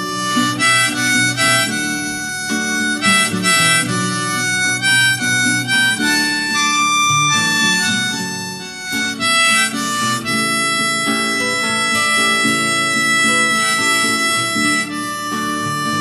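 Background music: the instrumental break of a Korean song, with no singing, a melody of held notes over accompaniment.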